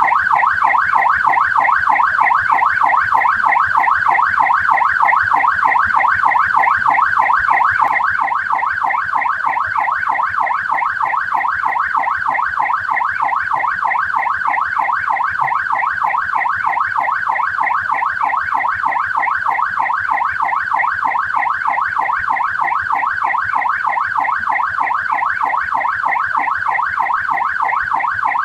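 Australian police siren sounding continuously in a fast warble, its pitch rising and falling rapidly over and over. It drops slightly in loudness about eight seconds in.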